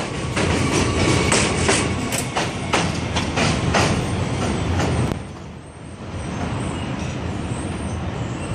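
R160 subway train pulling out, its wheels clicking over the rail joints in a quick clickety-clack, about three clicks a second, over a loud running rumble. About five seconds in the clicking stops, and a steadier rumble follows as the train runs off.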